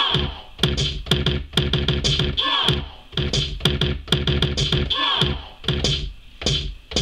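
Beat played on a Native Instruments Maschine with its stock Kittens Kit: a steady run of drum hits, with a pitched sample that bends in pitch about every two and a half seconds.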